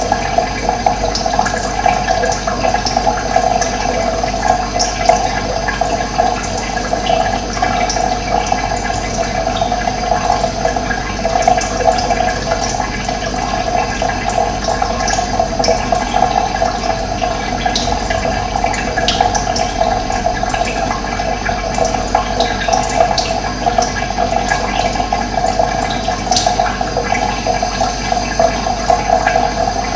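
Running water, a steady rushing flow, with brief high bird chirps here and there.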